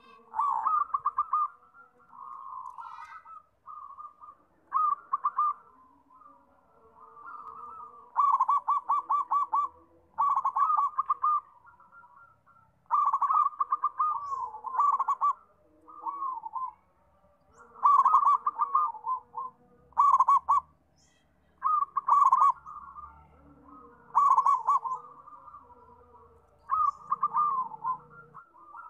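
Zebra dove (perkutut) cooing: phrases of rapid staccato notes, each about a second long, repeated every two seconds or so, with softer coos between.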